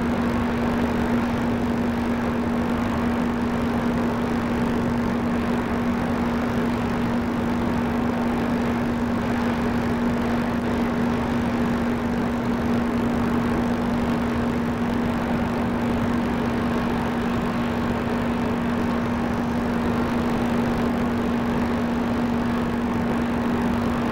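Steady machine drone: a constant hum over an even rushing noise, with no change in level or pitch.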